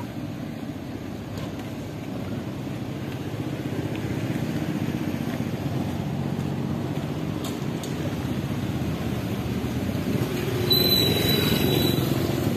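Small motorcycle engine running close by and pulling away, over the steady hum of street traffic. The engine sound grows louder toward the end, with a short high squeal near the end.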